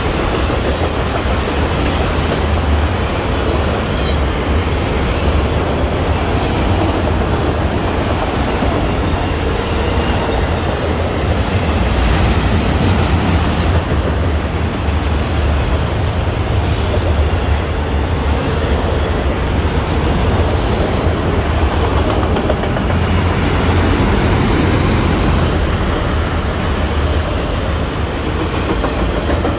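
Freight cars of a CSX auto train rolling past close by: a loud, steady rumble of steel wheels on the rails.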